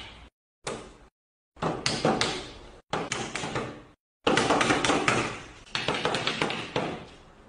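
A series of taps and slaps on a wooden tabletop, each knock fading quickly. The knocks come singly at first, then in a rapid run from about four seconds in.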